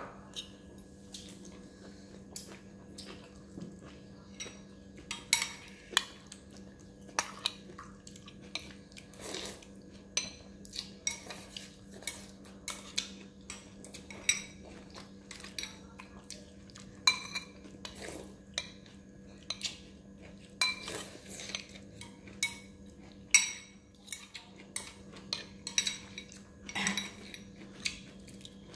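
Metal spoon clinking and scraping against a bowl as fried noodles are stirred and scooped, in irregular separate clicks. A faint steady hum runs underneath.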